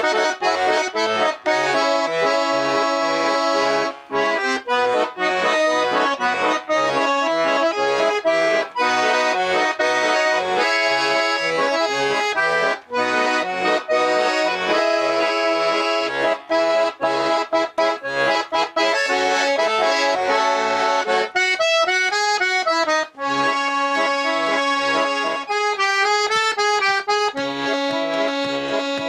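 Button accordion playing a traditional-style tune: a melody over regular alternating bass notes and chords, with a trilled, wavering passage about three-quarters of the way through.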